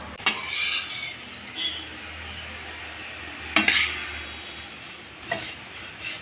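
Metal spatula stirring and scraping vermicelli as it roasts in a kadai. Three sharper scrapes stand out: just after the start, a little past halfway, and near the end.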